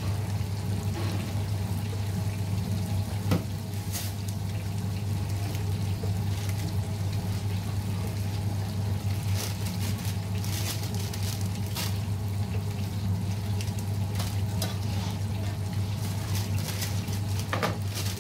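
Fried-chicken stall kitchen: a steady low hum with frying oil sizzling underneath, broken by a few sharp clicks and taps of metal utensils such as tongs and a seasoning shaker.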